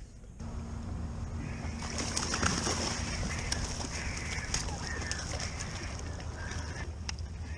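A crowd of brown pelicans jostling on the water beside a boat: water splashing and sloshing, with scattered sharp clicks. A steady low hum runs under the first half.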